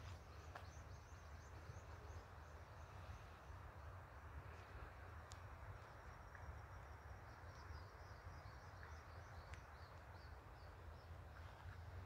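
Near-silent woodland evening ambience: a faint series of short high chirps repeating at about three a second over a low steady rumble.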